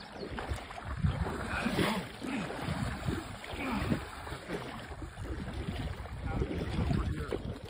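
River water sloshing around wading legs, with wind buffeting the microphone in gusts.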